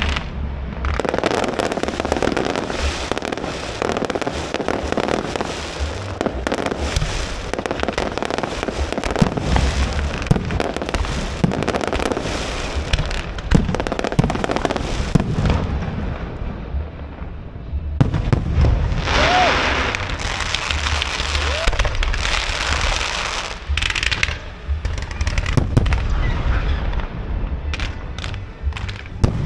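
Fireworks going off in a dense, continuous barrage of bangs and crackles, with a brief lull a little past halfway before they resume.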